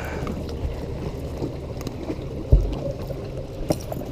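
A steady low rumble of boats at the dock, with one heavy thump a little past halfway and a couple of sharp clicks near the end.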